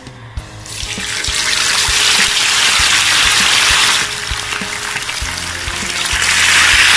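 Boiled chicken pieces going into hot deep-frying oil: the oil bursts into a loud, steady sizzle and bubbling that builds over the first second, eases briefly about four seconds in, then swells again as more chicken goes in. The water held in the boiled chicken is what makes the oil bubble so hard.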